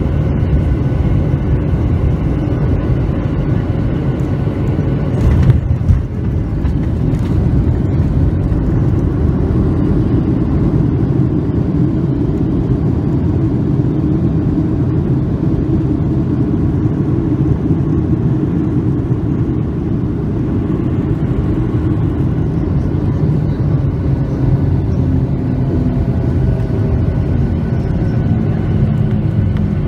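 Cabin noise of a Boeing 737-900 landing: a steady, loud, low rumble of the CFM56 engines and airflow. About five seconds in comes a sharp thump as the main gear touches the runway, and the rumble of the rollout continues after it.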